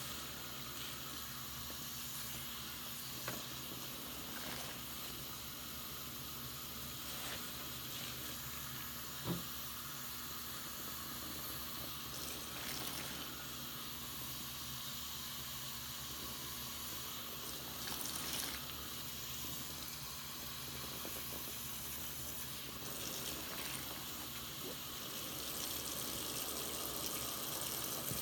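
Tap water running into a sudsy sink while a soapy sponge is squeezed and wrung, the foam crackling. Twice a brief knock stands out, a few seconds in and again about nine seconds in.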